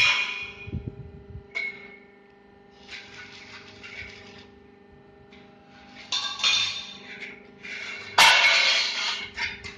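Light-gauge steel channel profiles clinking, clattering and scraping against each other as they are handled, with a sharp metal knock about a second and a half in and a louder one near the end. A steady hum runs underneath.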